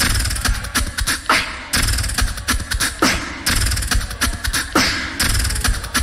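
Live beatboxing layered on a loop station: a repeating beatbox loop with sharp percussive clicks over a heavy bass layer, the pattern coming round about every 1.7 seconds.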